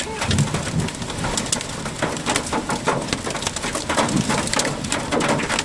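Hailstones pelting a vehicle's body and windows in a heavy hail storm: a dense, irregular clatter of many hits over the hiss of rain.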